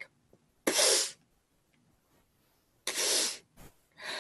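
A person sniffing in loudly through the nose while forcing air out of puffed cheeks: three short breathy bursts. This is the inhale-while-exhaling step of circular breathing, as practised for the clarinet.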